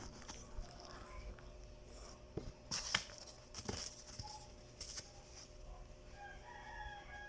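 Packaging and camera accessories being handled: a scatter of sharp clicks and crinkles, the loudest about three seconds in. Near the end a faint drawn-out pitched call sounds in the background.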